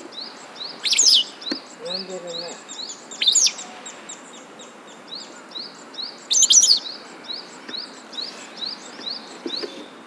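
Wild birds chirping: one bird repeats a short high note about three times a second throughout, while louder bursts of twittering chirps come about a second in, again around three seconds, and near six and a half seconds.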